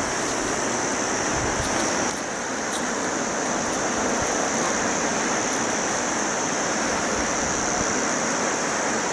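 Surf on a beach: a steady hiss of breaking waves, with a steady high-pitched drone over it.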